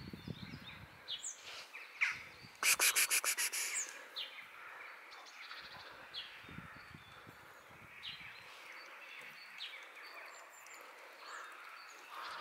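Small birds chirping here and there in the background. A rapid run of about ten sharp clicks comes roughly three seconds in and is the loudest sound.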